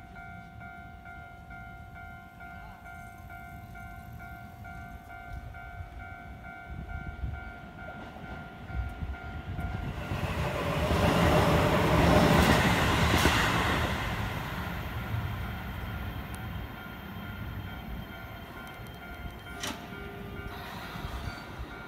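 Keio 7000-series electric commuter train approaching and passing close by, its wheels and running gear loudest from about ten to fourteen seconds in, then fading. A steady high tone sounds before the train arrives and comes back near the end.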